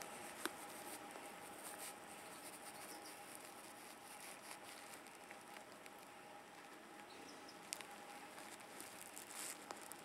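Faint, high-pitched peeps from a litter of baby European hedgehogs (hoglets), with a few small clicks and soft shuffling as they move in their cloth bedding.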